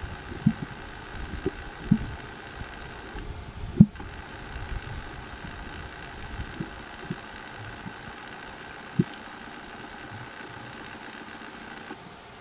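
Underwater ambience: a steady low hum with a faint high tone. Several short, dull low knocks, the sharpest about four seconds in.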